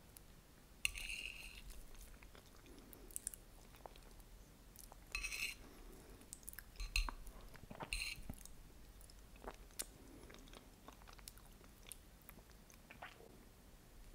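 Close-miked eating sounds of New York cheesecake with caramel sauce: soft chewing with small mouth clicks, broken by about four louder brief bites or smacks.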